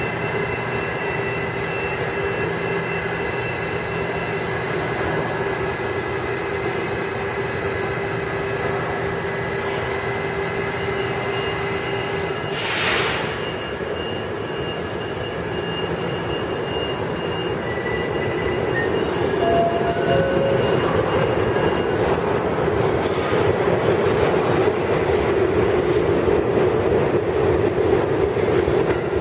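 R68 New York City subway train holding at the platform end with a steady electrical hum, then a short burst of air hiss about halfway through. The train then rolls slowly into the station, its wheel and running noise growing louder over the last ten seconds with a few brief wheel squeals.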